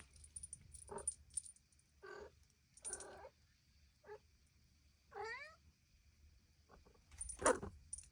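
Domestic cat meowing repeatedly, about six short meows a second or so apart, with the loudest one near the end.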